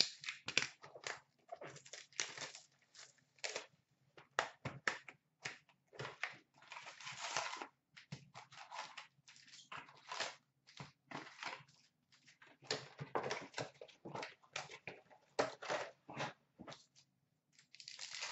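Plastic wrapping and cardboard of a hockey card box and its foil packs being torn open and crinkled by hand: irregular crackling and rustling, with longer tearing sounds about seven seconds in and near the end. A faint low hum runs underneath.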